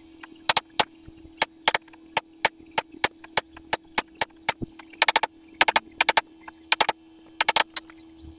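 A run of sharp knocks or taps, about three a second at first, then in quick runs of three or four from about halfway on, over a steady low hum.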